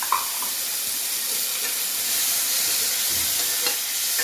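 Chopped tomato and onion sizzling in hot oil in a kadai, a steady hiss as the tomato's water hits the oil, with a short clink just after the start.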